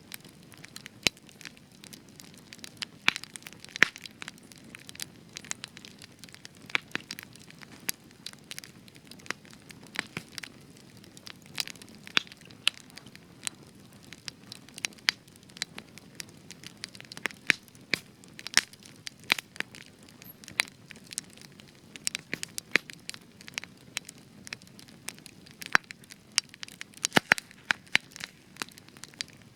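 Spruce wood fire crackling, with frequent sharp irregular pops and snaps over a low steady hiss of burning.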